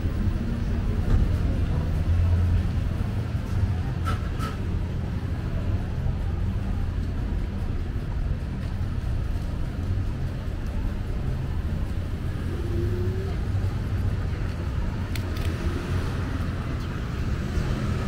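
City street traffic: a steady low rumble of passing cars and engines.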